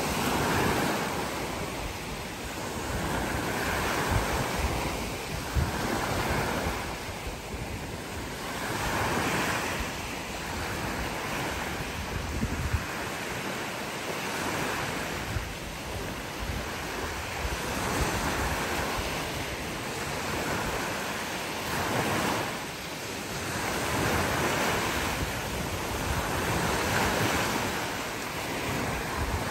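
Small waves breaking and washing up a sandy beach, the surf swelling and fading every couple of seconds, with wind buffeting the microphone.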